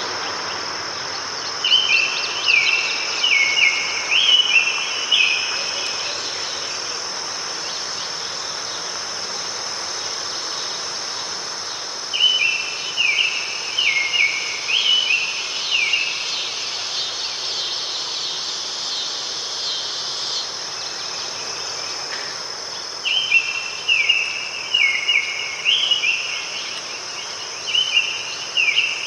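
A songbird singing bouts of quick, stepped whistled notes, repeated several times per bout, with three or four bouts separated by pauses of several seconds, over a continuous high insect trill like crickets.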